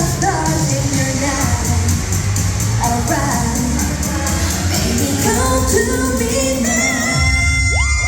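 K-pop song played loud through a hall's sound system, with a woman singing over a strong bass beat. Near the end the singing gives way to held high synth tones.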